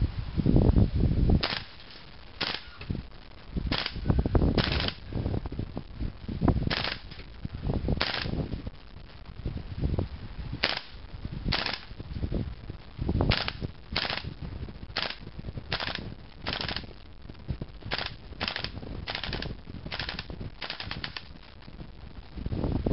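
AGM M4 RIS gas blowback airsoft rifle firing a long series of sharp shots, roughly one a second with some in quick pairs, faster near the end.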